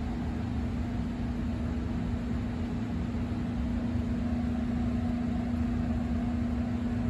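Steady machine hum: a constant low tone over an even hiss, unchanging throughout.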